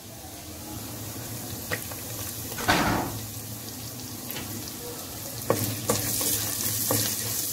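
Onions and spices frying in hot oil in a clay pot with a steady sizzle. About three seconds in, the sizzle surges as garlic cloves go into the oil. Light knocks of a spoon stirring against the pot follow.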